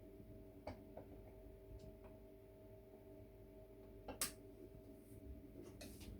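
A spoon stirring cocoa in a glass of milk, giving a few faint, irregular clinks, the loudest about four seconds in, over a low steady hum.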